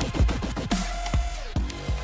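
Electronic dance music with a heavy beat: deep bass hits that drop quickly in pitch, several times.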